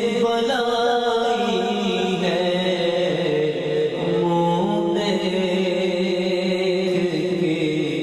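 A man's voice singing an Urdu naat (devotional song) into a microphone, in long drawn-out held notes that move slowly from pitch to pitch.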